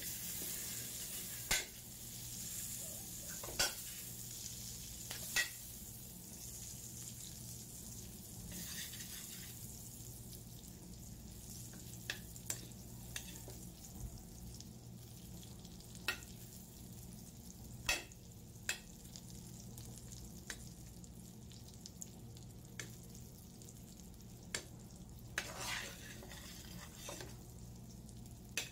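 Butter sizzling as it melts in a hot metal wok, stirred with a metal spoon that clinks and scrapes against the pan now and then.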